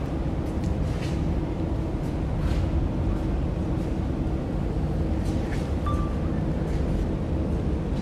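Steady low rumble of background noise, with a few faint clicks and a brief high beep about six seconds in.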